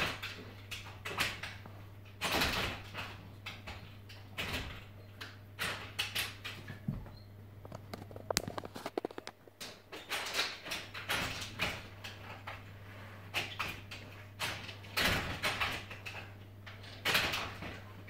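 A dog scratching and pawing at a glass door from outside, rattling the door in its frame in repeated, irregular bursts. A steady low hum runs underneath.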